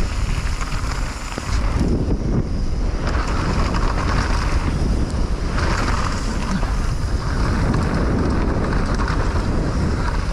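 Wind buffeting the microphone of a mountain biker riding downhill, a steady low rumble with a hiss that swells and fades.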